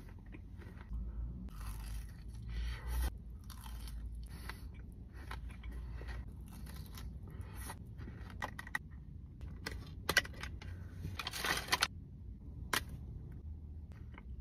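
Close-up chewing and crunching of a filled chocolate bar: irregular crisp crackles while the mouthful is chewed, with a louder, denser run of crunches about eleven seconds in.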